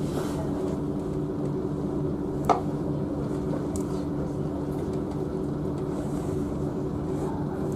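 Diesel multiple unit's engine running steadily with a constant low hum, and one sharp click about two and a half seconds in.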